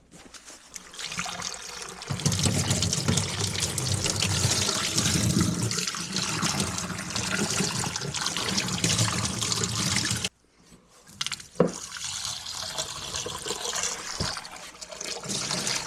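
Water running from a tap and splashing into a container, used to clear ice from the animals' frozen water dishes. It cuts off suddenly about ten seconds in, then runs again more softly, with a single knock soon after.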